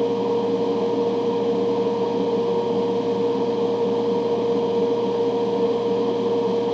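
Fume-extraction fan running steadily: an even whoosh with a constant hum.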